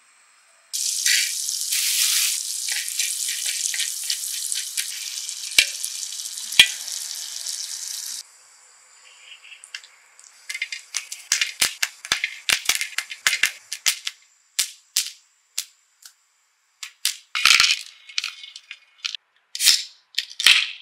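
Butter sizzling on a hot griddle pan, a steady hiss with small crackles that cuts off abruptly about eight seconds in. Then popcorn kernels popping on the griddle under a mesh cover: sharp, irregular pops, several a second.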